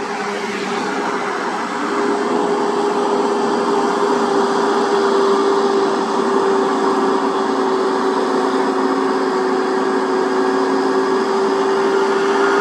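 Diesel engine of a Volvo heavy truck running steadily as it approaches, with a constant droning tone. It grows louder over the first couple of seconds and then holds level.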